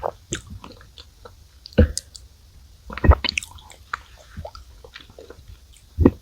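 Close-up chewing of chocolate cookies softened in milk: soft wet smacks and clicks, with several louder bites about two, three and six seconds in.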